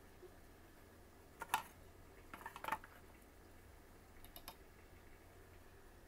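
Light clicks and taps of kitchen utensils being handled, a wooden spoon knocking against a container of melted candy. There is one sharp click about a second and a half in, a quick cluster of taps about a second later, and two fainter ticks near the end.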